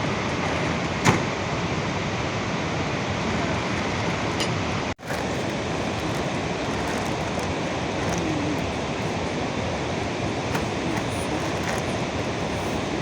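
Heavy rain falling steadily, an even hiss. There is a single sharp knock about a second in, and the sound drops out for an instant about five seconds in.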